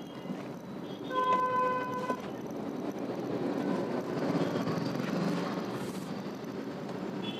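A vehicle horn sounds once, a steady blast of about a second, over the steady noise of slow street traffic heard from inside a car.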